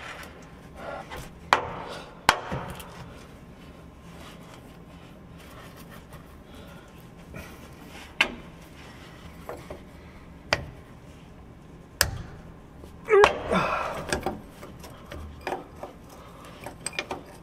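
Hands and a wrench working on hydraulic hose fittings at a truck's valve block: a string of sharp, separate clicks and knocks, with a louder scraping rattle about thirteen seconds in.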